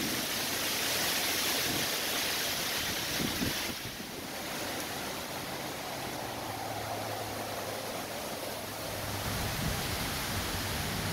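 Storm wind and rain in the trees making a steady hiss. It breaks briefly about four seconds in, then goes on a little quieter.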